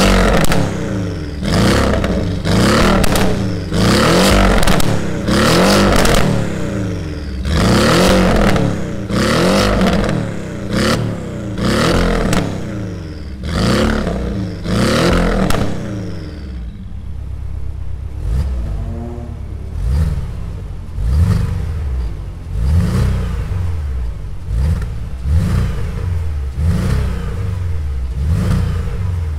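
Porsche 718 Cayman with an aftermarket valved T1 exhaust, revved in short blips at standstill, about one a second, each rising and falling quickly. About two-thirds of the way through the note turns deeper and duller while the blips go on, as the exhaust valves switch mode.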